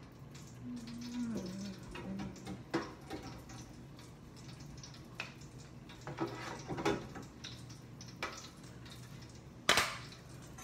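Hot oil in a deep fryer bubbling and crackling around a piece of biscuit dough just dropped in to fry, with scattered small pops over a faint steady hum. A sharp knock near the end.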